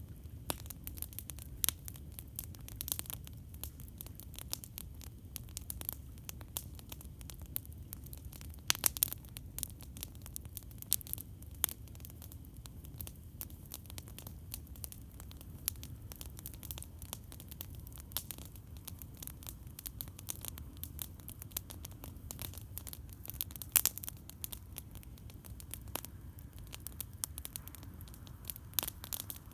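Campfire crackling, with frequent sharp pops and snaps of burning wood and two louder pops about nine seconds in and near twenty-four seconds, over a steady low rumble.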